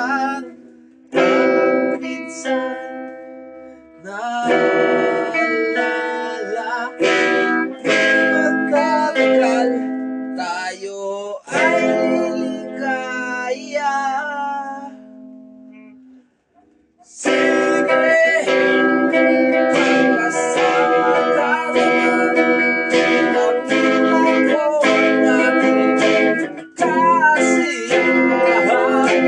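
Guitar being strummed and picked, chords struck every few seconds and left ringing until they fade, then a short pause about sixteen seconds in before steadier continuous playing. Heard through a video call.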